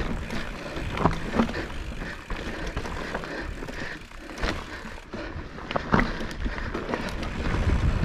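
Nukeproof Scout hardtail mountain bike rolling over a rocky trail: a steady tyre rumble with scattered sharp knocks and rattles as the wheels hit rocks.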